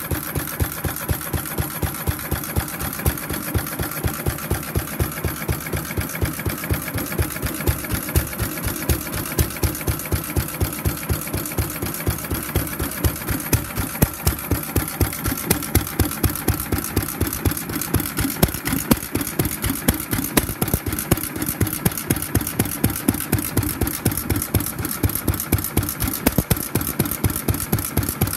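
International Harvester Model M 3 hp single-cylinder hit-and-miss stationary engine running steadily, with a regular beat of about three strong pulses a second.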